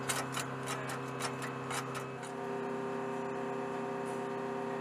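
Steady mechanical hum from ground equipment, with a run of sharp metallic clicks over the first two seconds as hydraulic aircraft jacks are worked by hand. The hum changes slightly in tone about two seconds in.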